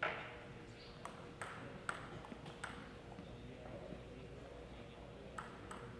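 Table tennis ball: a sharp hit right at the start, the loudest sound, then light, sharp ticks of the ball bouncing, several between about one and three seconds in and two more near the end.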